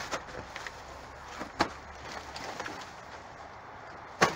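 Rummaging through cardboard boxes and plastic bags in a dumpster: rustling and handling noises with a few sharp knocks, the loudest near the end.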